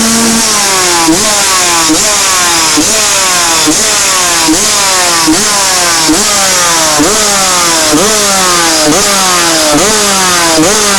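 Honda CR80 two-stroke motocross engine with its stock exhaust, revved in quick throttle blips a bit more than once a second. Each blip jumps the pitch up sharply, and it then sags slowly back down.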